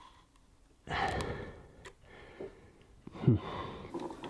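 A man lets out a long sigh about a second in, then makes a short wordless sound that falls in pitch, in dismay at the mixer's melted drive outlet. Faint small clicks come from fingers handling the plastic.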